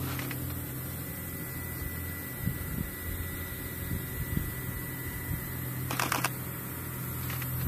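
Steady low hum of the HIMARS launcher vehicle's engine idling while the launch pod is raised, with a brief burst of rattling clicks about six seconds in.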